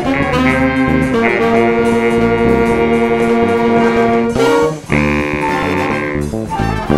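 Jazz band of saxophones, trumpet, flute, clarinet, keyboards, bass guitar and drums playing a funk-jazz tune. The horns hold a long chord from about a second in, break off after about four and a half seconds, and the band comes back in.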